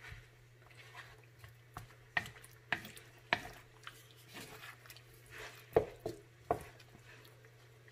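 A utensil stirring chicken wings in coconut milk in a pot: a scatter of light, irregular knocks of the utensil against the pot over a steady low hum.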